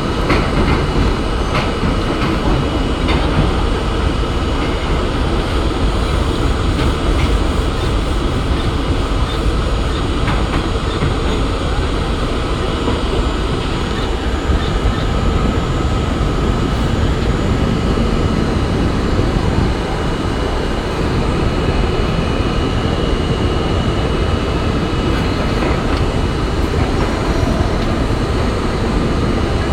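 R32 subway car running at speed in the tunnel: a steady rumble of wheels on rail, with scattered clicks over track joints and a steady whine that rises in level about halfway through.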